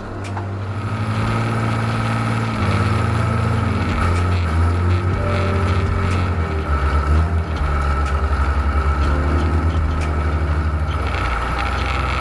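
John Deere 3130 LS tractor's six-cylinder diesel engine running, its engine speed shifting up and down several times, with a pulsing beat for a few seconds around the middle.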